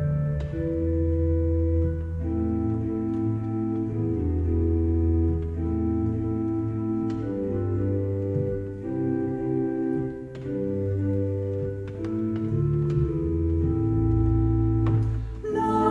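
Organ playing sustained chords that change slowly. Singing voices come in right at the end.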